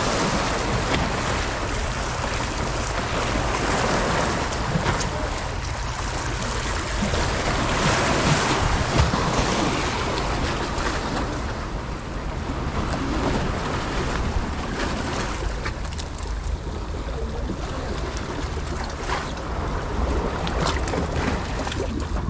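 Wind buffeting the microphone over surf washing on the shore, a steady rushing noise with a low rumble that swells and eases every few seconds. A few faint clicks come through in the second half.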